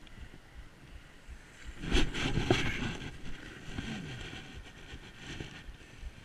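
Snowboard sliding over snow, with one louder scrape of the board's edge lasting about a second, about two seconds in, and wind buffeting the microphone.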